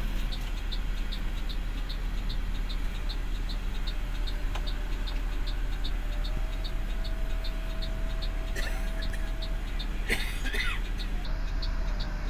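Idling diesel engine of a Mercedes-Benz bus, heard from inside the cab, with a steady low rumble while the turn-signal indicator ticks evenly about two and a half times a second. Two short hisses come about eight and a half and ten seconds in.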